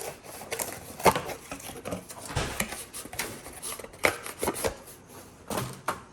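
Irregular rubbing, rustling and light clicks and knocks from handling the accessories of an air fryer oven, with the sharpest knock about a second in.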